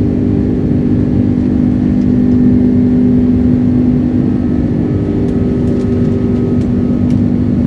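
Cabin noise inside an Airbus A330-200 climbing out after takeoff: the steady drone of its Rolls-Royce Trent 700 turbofans and rushing air, with a few steady hum tones.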